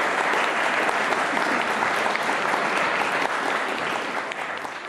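Audience applauding with dense, even clapping that thins and fades away near the end.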